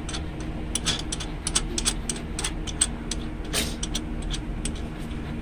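Irregular light metallic clicks as the nut is hand-turned along the threaded rod of an inner axle seal installer, drawing the tool in to press the inner axle seal into the differential housing. A steady low hum runs underneath.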